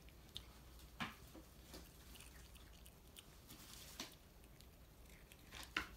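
Near silence: quiet room tone with a few faint soft clicks, about one a second apart at first and one near the end.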